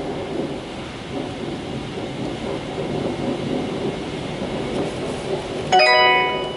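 High-pressure wash water spraying against a semi truck's cab and windshield, heard from inside the cab as a steady rushing noise. A brief steady tone with several pitches sounds near the end.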